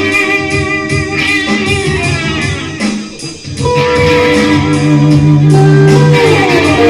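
Instrumental rock music led by electric guitar over a steady beat. The music briefly drops away about three seconds in, then a long held guitar note slides down in pitch near the end.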